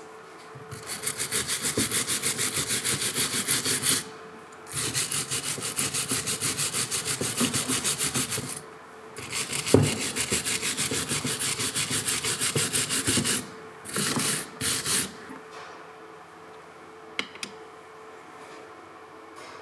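A hand tool rubbing back and forth on a part, about six strokes a second, in three bouts of several seconds each, then two short bouts.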